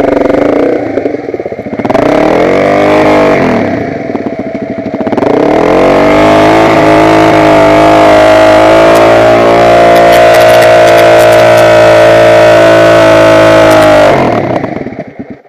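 Motocross bike engine revving: a quick rise and fall in revs about two seconds in, then it climbs again and holds high revs for about eight seconds before the sound drops away sharply near the end.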